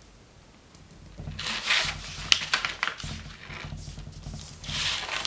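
A long strip of stiff elephant hide paper rustling and crinkling in several bursts as hands fold its edges to the centre line and press the creases flat, with a sharp crackle a little past two seconds in.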